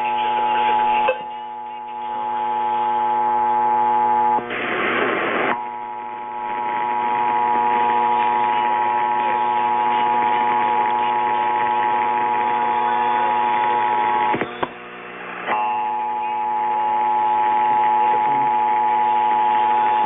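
Emergency Alert System two-tone attention signal (853 and 960 Hz) sounding from an AM radio's speaker, marking a Required Monthly Test. It is a steady, loud pair of tones, broken twice for about a second each: by a burst of noise about five seconds in, and by a brief dropout with a click about fifteen seconds in.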